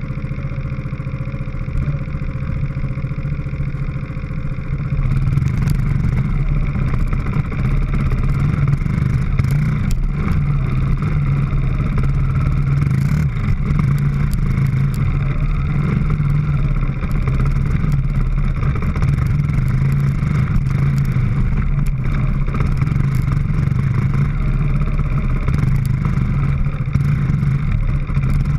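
Dirt bike engines running while riding a rough, rocky trail, with occasional knocks and rattles from the ride; the engine sound gets louder about five seconds in.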